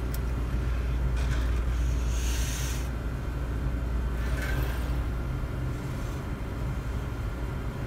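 Automated liquid-handling robot at work: a steady low hum with short whirring bursts as its multichannel pipetting arm moves along the gantry, at about 1, 2 and 4 seconds in.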